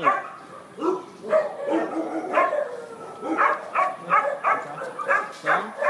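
A dog barking in a series of short barks, a dozen or so, coming faster from about three seconds in.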